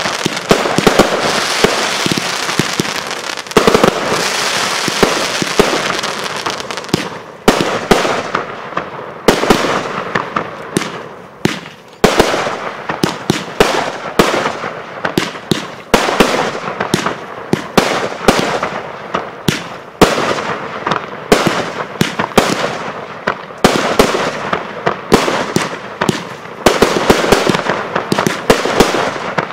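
Firework display: aerial shells bursting in the sky. A dense, continuous crackle for the first several seconds gives way to a fast run of separate bangs, each with a fading tail.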